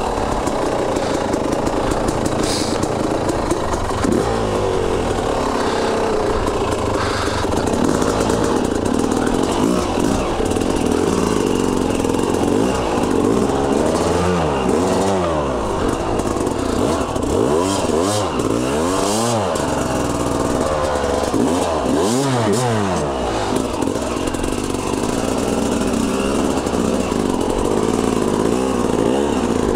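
Dirt bike engine running and being revved up and down again and again, with quick rising and falling sweeps through the middle, as the bike is worked up a deep rut.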